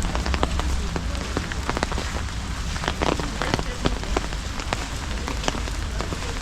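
Rain falling, with many irregular sharp taps of single drops.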